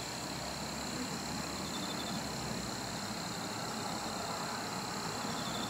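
Steady outdoor ambience: an even hiss with two faint, steady high-pitched tones above it, unchanging throughout.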